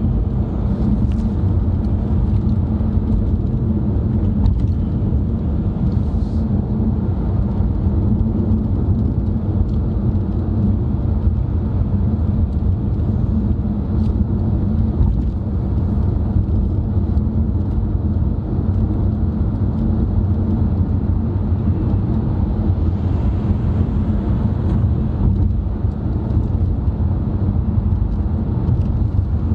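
Steady road noise inside a moving car's cabin: a low, even rumble of engine and tyres.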